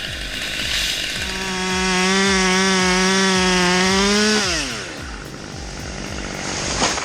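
Two-stroke chainsaw engine held at high revs with a steady high pitch, then the throttle is released about four and a half seconds in and the pitch drops quickly.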